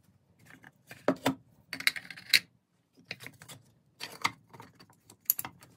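Small wooden box being handled and closed: a string of wooden clicks and knocks in short clusters as the hinged mirror panel and lid are folded and set down.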